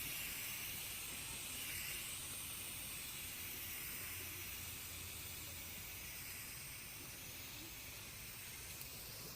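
Aerosol spray paint can spraying in one long, continuous hiss that eases slightly toward the end.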